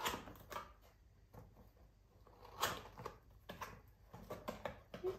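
Cardboard box rustling and scraping as a heart-shaped cast-iron skillet is worked out of it by its handle: scattered light knocks and rubs, the loudest right at the start and about two and a half seconds in.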